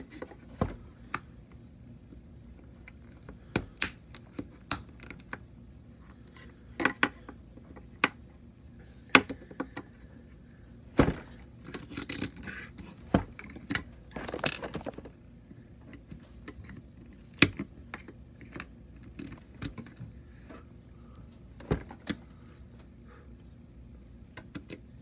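Irregular clicks, taps and knocks of a plastic toy train chassis and small parts being handled and set down on a hard workbench, with a quick run of small clicks and rattles about twelve to fifteen seconds in.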